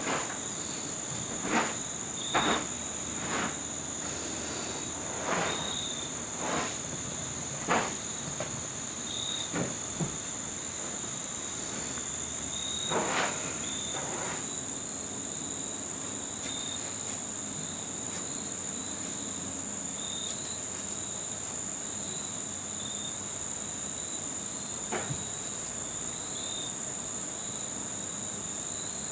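Crickets trilling: one steady high continuous trill, with a lower, shorter chirp recurring every few seconds. Several brief soft knocks sound in the first half.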